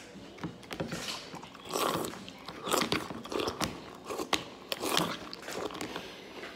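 A mouthful of cereal being chewed with milk, right at the microphone: a run of irregular wet crunches and clicks.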